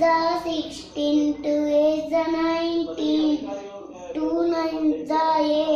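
A young boy chanting multiplication tables aloud in a sing-song voice, holding each syllable on a level pitch in short rhythmic phrases.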